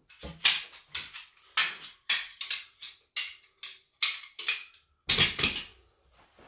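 Metal pole sections of a folding camping cot clacking together as they are pulled out and folded up: a quick run of sharp metallic knocks, with a denser clatter about five seconds in.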